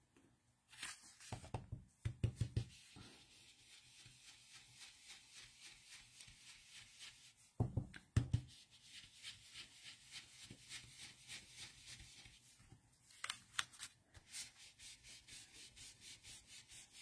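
Blending brush rubbed in quick circles over cardstock, a faint, even swishing at about two or three strokes a second, with a few louder knocks from handling the brush and paper.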